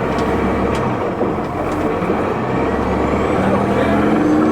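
Cummins ISL diesel engine of a 2004 New Flyer D40LF transit bus running steadily. Over the last second or so the engine picks up, and a faint high turbocharger whine rises in pitch with it.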